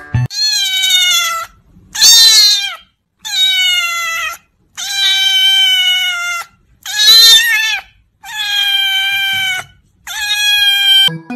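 Kitten meowing loudly: seven long meows in a row, each falling slightly in pitch.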